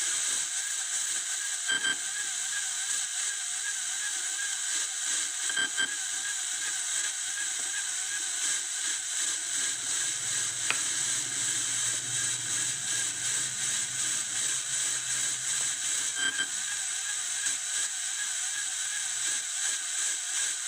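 Electronic detector receiver's audio output: a steady static hiss with a faint wavering tone running through it. A few short clicks come about 2, 6 and 16 seconds in, and a low hum rises under the hiss about halfway through.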